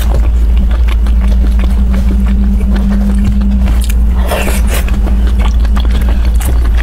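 Close-miked eating of a dumpling: wet mouth clicks and chewing, with a louder bite about four seconds in. A steady low hum runs underneath.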